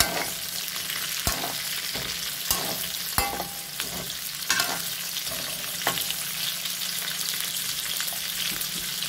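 Potatoes, carrots and green stalks frying in oil in an aluminium wok, giving a steady sizzle. During the first six seconds a perforated metal skimmer knocks and scrapes against the wok about six times as the vegetables are stirred in; after that only the sizzle goes on.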